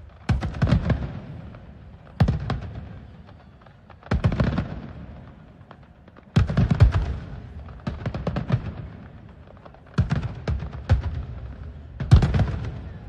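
Fireworks going off in a series of loud bangs, a new burst about every two seconds. Each burst is a cluster of quick cracks that then dies away.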